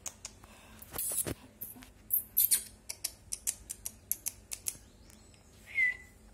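Quick kissing and clicking noises made with the lips, a fast string of about four sharp clicks a second, then a short high whistle falling in pitch near the end, the kind made to draw puppies' attention.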